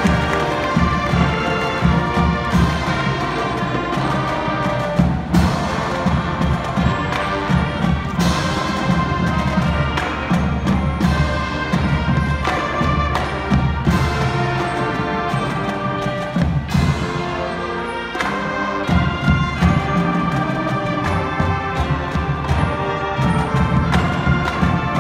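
School marching band playing live: brass, including sousaphones, holding sustained chords, with percussion hits marking the beat.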